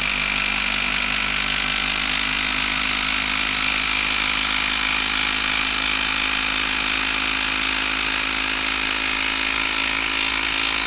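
Makita DT03 12-volt brushed impact driver hammering continuously under load as it drives a long screw into a wooden log, its impact mechanism rattling at a steady rapid rate.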